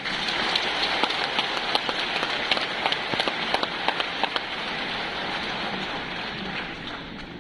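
A large audience applauding, dense clapping that is loudest for the first few seconds and then slowly dies down.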